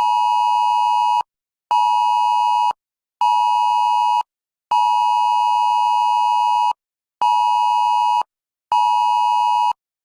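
Emergency Alert System attention tone: a loud, steady two-note electronic beep sounded in pulses, one long then two short, twice over, heralding a tornado warning.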